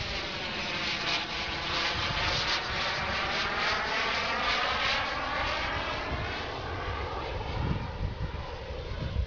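Radio-controlled jet model airplane flying overhead: a steady rushing engine sound whose tone slowly sweeps as the plane passes.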